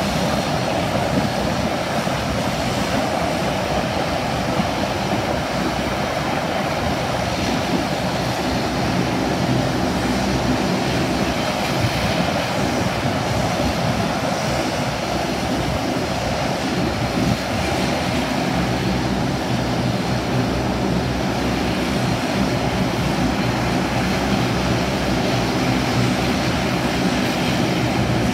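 De Havilland Dash 8-400 turboprop, its two Pratt & Whitney Canada PW150A engines and six-blade propellers running at low power, a steady drone with a low propeller hum.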